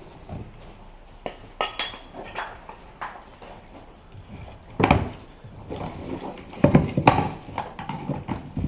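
Scattered clinks and knocks of containers and tools being handled. There is a short ringing clink about two seconds in, and louder knocks around five and seven seconds in.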